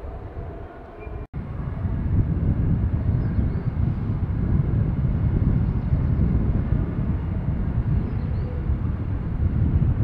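A train rumbling through the station, a loud steady low rumble that starts after a brief dropout about a second in.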